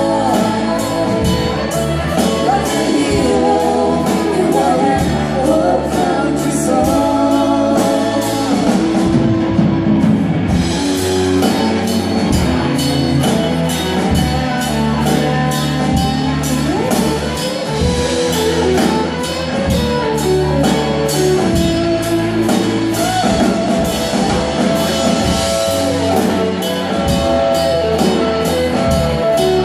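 Live rock band playing a song: female vocals over electric guitars, drums and keyboard, with a steady drum beat.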